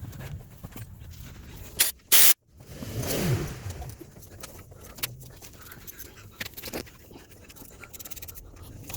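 Scattered metallic clicks and clatter from hand tools and engine parts during an engine teardown. About two seconds in there is one loud short crash, and right after it a scrape that falls in pitch.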